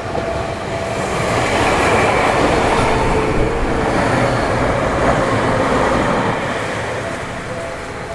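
A passing vehicle: a rushing noise that builds over the first two seconds, holds loud for a few seconds, then fades away toward the end.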